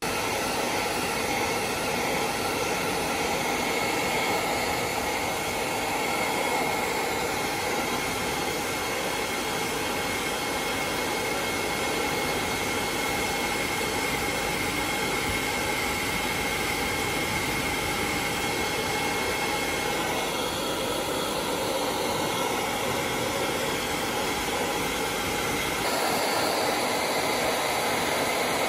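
Hand-held hair dryer switched on and blowing steadily, with a faint high whine, drying a wet kitten after its bath. The whine fades about two-thirds of the way through and the sound changes again near the end.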